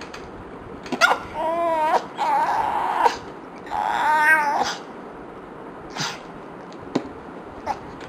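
Dog whining and grumbling in three short bouts of about a second each, its wavering, vocal protest at fart sound effects. A few sharp clicks follow near the end.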